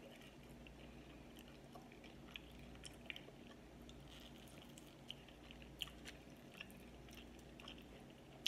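Faint chewing and biting of a fried chicken wing in sweet chili sauce, with many small scattered mouth clicks over a low steady hum.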